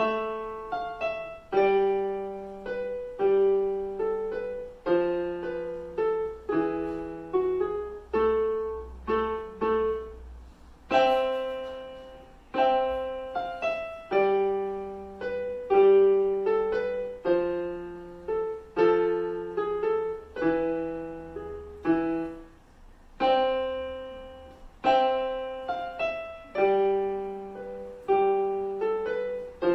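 Casio digital piano played solo: a melody over lower bass notes, each note struck and left to fade.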